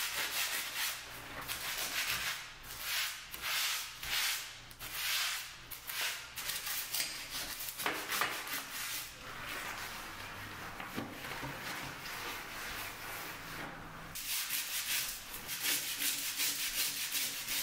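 Toothbrush bristles scrubbing a soapy kitchen sink edge around the faucet base in back-and-forth strokes. The strokes ease off for a few seconds midway, then come quicker near the end.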